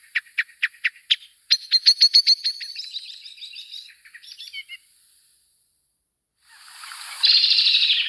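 Small songbirds singing. It opens with a run of separate notes, about five a second, followed by a fast high trill that fades out. Near the end comes a louder, noisier burst of sound.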